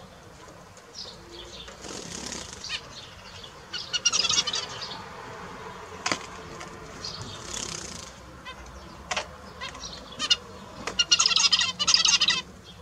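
Zebra finches calling, with bursts of rapid, buzzy stacked notes about four seconds in and again near the end, softer chirps between them, and a few sharp clicks.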